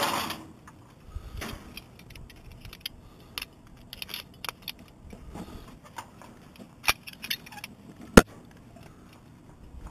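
Metal clinks and clanks of a climber's hardware against the steel ladder and cage of a tower climb: many small irregular ticks, with two sharp louder knocks near the end.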